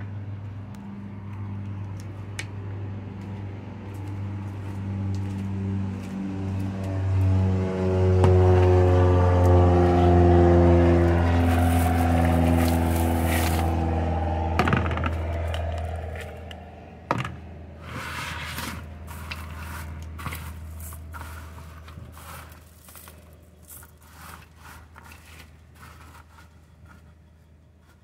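Low engine hum of a passing vehicle swells to its loudest about a third of the way in, its pitch sliding down as it goes by, then fades out. In the second half come scattered light scrapes and crackles.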